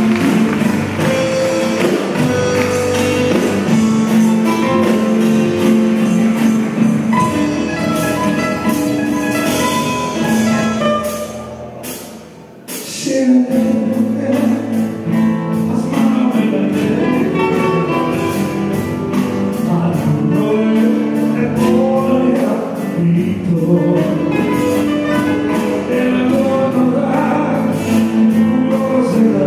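Live Latin folk band music: nylon-string acoustic guitars strummed with singing. About twelve seconds in the music drops away briefly, then comes back in at full level.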